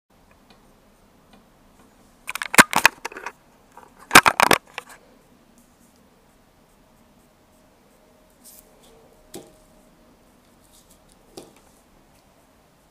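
Two short bursts of rapid, sharp clicking and rattling, about two and four seconds in, followed by a few faint knocks: things being handled on a tabletop.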